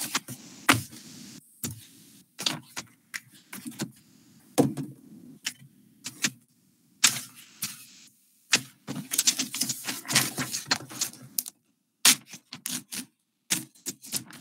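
Irregular clicking and clacking of a computer keyboard being typed on, with short flurries of keystrokes, heard over a video call with the background cutting in and out between them.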